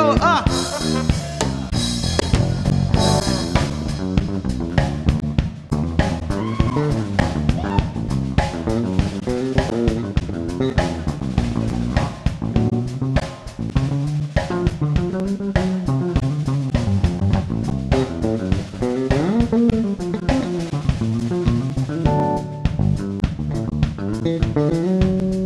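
Live band music led by an electric bass guitar playing a moving melodic line, over a drum kit.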